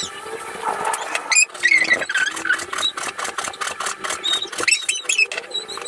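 Kitchen knife slicing pork belly on a cutting board: a quick, irregular run of taps and clicks from about a second and a half in, with high, wavering squeaky chirps throughout.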